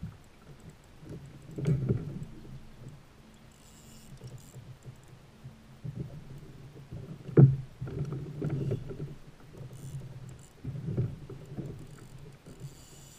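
Low rumbling and soft bumps from a fishing kayak as the angler shifts and works his rod, with one sharp knock about seven seconds in.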